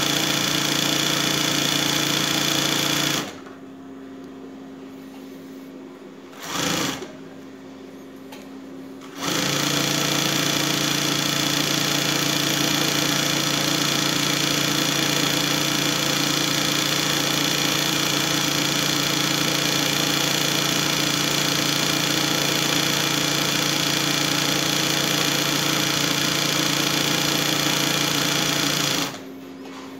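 Bernina 217 industrial picot and pintuck sewing machine running at a steady speed. It stops about three seconds in, sews a brief burst near seven seconds, resumes around nine seconds and runs until just before the end; in the pauses a lower steady hum continues.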